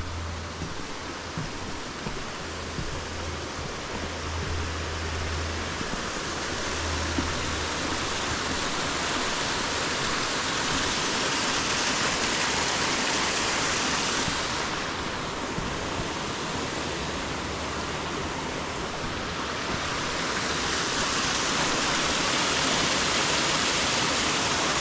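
Rushing creek water: a steady, even rush that grows louder over the first half, eases a little, then swells again.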